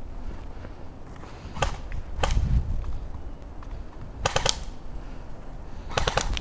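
Airsoft guns firing: a couple of single shots, then two short rapid bursts, one about midway and one near the end.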